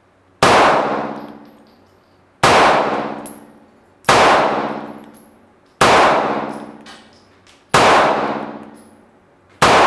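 Bond Arms Bullpup 9 pistol firing 9mm rounds in slow fire: six shots, about two seconds apart, the last near the end. Each shot rings on for over a second in the echo of an indoor range.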